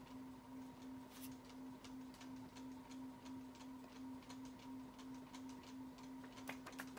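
Quiet room tone: a faint, steady low hum with a few faint, scattered clicks.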